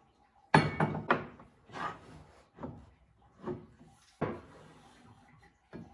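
Aluminium side rail of a Shapeoko XXL CNC router knocking and scraping against the frame and wooden table as it is fitted into place. There is a string of knocks, the loudest about half a second in, then more every half second to a second, with a last one near the end.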